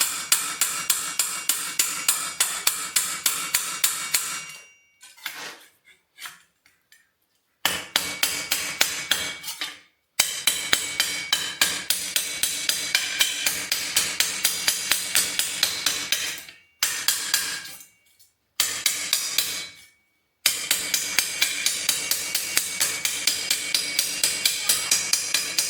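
Metal being hand-hammered in quick, even blows, about four or five a second, each ringing. The hammering comes in runs with a few short pauses, the longest starting about four seconds in.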